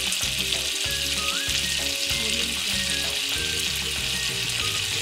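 Butter melting in hot oil in a pan, sizzling and bubbling steadily.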